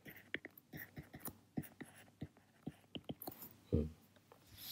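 Stylus tapping and scratching on a tablet screen while handwriting notes: a string of short, light clicks. A brief, louder low sound comes about three-quarters of the way through.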